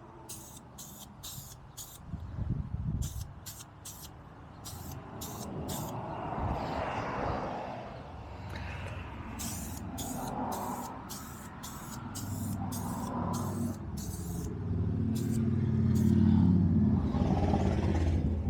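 Electric paint sprayer spraying enamel, its motor humming under short bursts of hiss that repeat two or three times a second, the hum growing louder in the second half.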